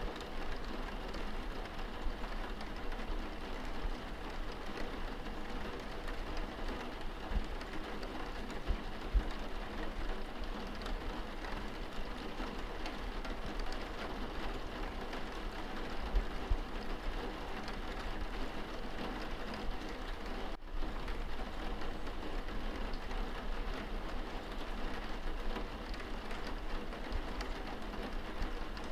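Steady rain falling on window glass, heard from indoors: a continuous patter with scattered drop ticks, dipping for an instant about two-thirds of the way through.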